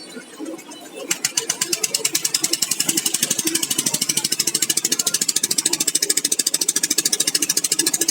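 Fishing boat's diesel engine running with a fast, even knocking beat, which comes in louder about a second in.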